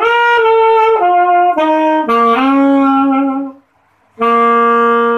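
Alto saxophone playing a descending run of notes in raga Nata, each note held briefly and stepping down to a low note held about a second. After a short break, one long low note is held and fades out.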